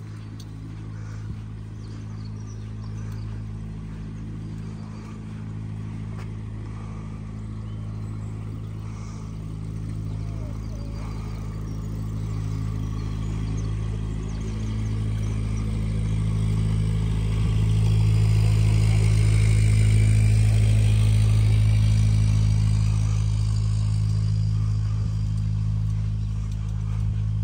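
A steady, low-pitched engine or machine hum that holds its pitch while growing louder for about twenty seconds, then easing off slightly near the end.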